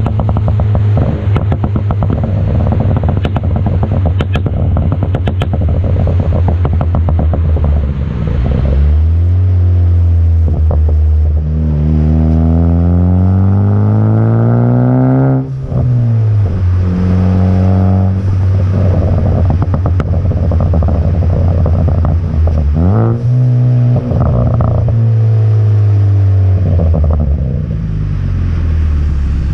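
Car exhaust through an AWE Track system with a stock downpipe, under way. For the first several seconds it runs off-throttle with rapid popping and crackling from a tune set up for overrun crackles. Then the revs climb for a few seconds and drop sharply at an upshift about halfway through, with another rise and easing off later on.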